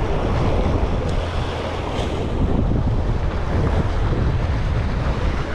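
Wind buffeting an action-camera microphone, with surf washing against jetty rocks as a steady rumbling noise.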